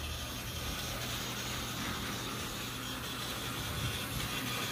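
Battery-powered Tomy toy train running on blue plastic track: a faint, steady motor whine with the wheels rolling.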